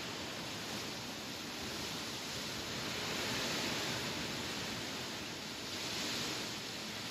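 Wind blowing through grass: a steady rustling hiss that swells gently twice, about midway and near the end.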